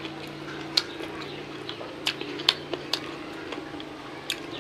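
Eating by hand: fingers working rice and sambal on a plate, giving about five short, wet clicks spread over a few seconds, over a faint steady hum.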